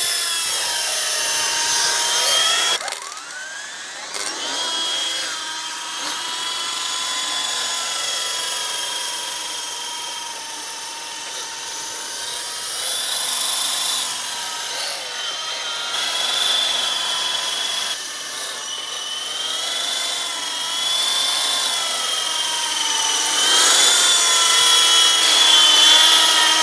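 Small battery-powered single-rotor RC helicopter flying, its electric motor and rotor making a high whine that wavers up and down in pitch.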